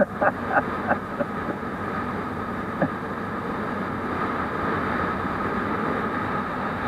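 Motorcycle running at road speed, its engine under wind noise on the microphone. A few short knocks come close together in the first second, and another about three seconds in.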